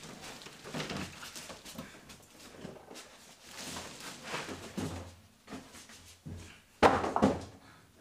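Corrugated cardboard box being lifted off its contents: cardboard scraping and rustling against foam packing and plastic wrap, with a loud thump about seven seconds in.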